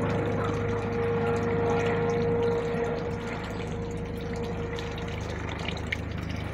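Police helicopter flying overhead: a steady rotor beat with a held whine that fades out about five seconds in, the whole sound growing a little quieter.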